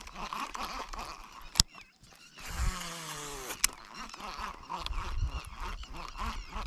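Repeated short animal calls, goose-like honks, running throughout. A sharp click about a second and a half in, and a brief hiss with a falling whine in the middle that ends in another click.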